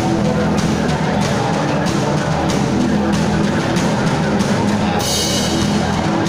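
A live rock band plays a song through a PA: a drum kit keeps a steady beat under electric guitars and bass guitar, with a bright crash about five seconds in.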